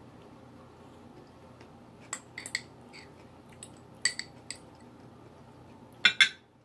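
Metal spoon clinking against glass bowls: a few light, separate clinks from about two seconds in, then a louder quick clatter of glassware near the end.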